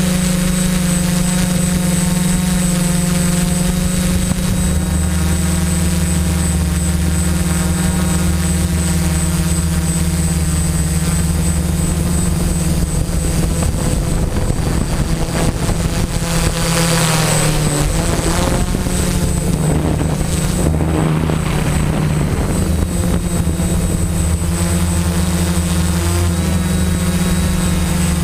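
Quadcopter's electric motors and propellers running with a steady buzzing hum, picked up by the GoPro mounted on the craft. The pitch dips about two-thirds of the way through as the throttle changes and rises again near the end.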